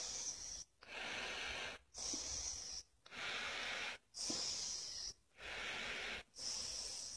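Close, heavy breathing through a face mask: steady in-and-out breaths, one about every second, alternating between a higher, hissier breath and a lower, broader one.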